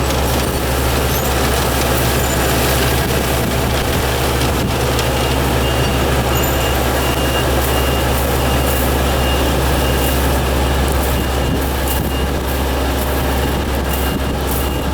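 Yanmar farm machine's engine running steadily close by, with a high electronic warning beep repeating about twice a second from about five seconds in.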